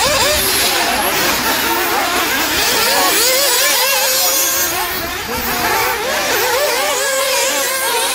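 Several nitro RC off-road cars' small glow-fuel two-stroke engines running together, their high buzzing pitches overlapping and constantly rising and falling as the cars accelerate and back off around the track.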